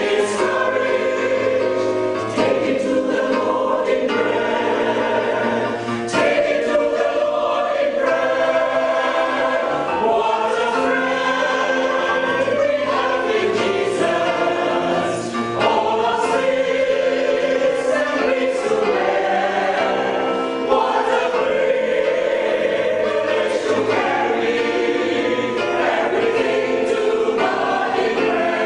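Mixed choir of men and women singing a slow piece in several parts, phrase after phrase.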